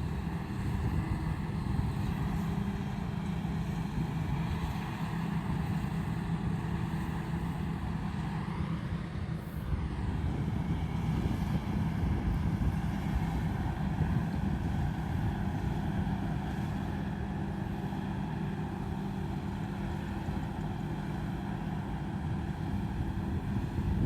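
Combine harvester's diesel engine and threshing machinery running steadily, with a brief change in pitch about ten seconds in.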